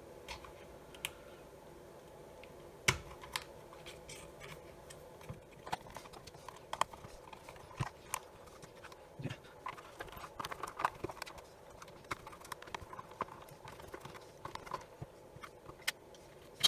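Irregular small clicks, taps and knocks of an inspection camera's plastic housing and parts being handled and taken apart by hand, with one sharper knock about three seconds in and a busier run of taps later on.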